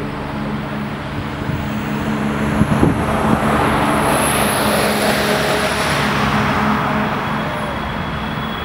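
Boeing 737-300's two CFM56-3 turbofan engines at takeoff thrust as the jet accelerates down the runway. The engine noise swells to its loudest about halfway through as the aircraft passes, with a thin high whine over it, then eases a little.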